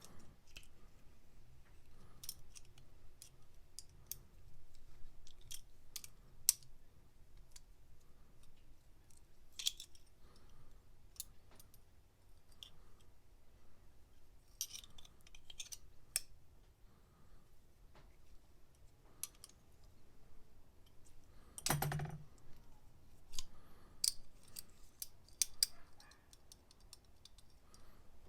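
Scattered light metallic clicks and taps of a pair of adjustable pliers being handled and worked, with one heavier knock about three-quarters of the way through.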